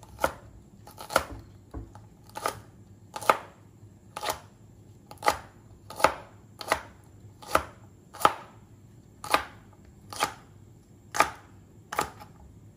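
Wide-bladed cleaver chopping French beans crosswise on a plastic cutting board: a steady series of single sharp chops, a little more than one a second.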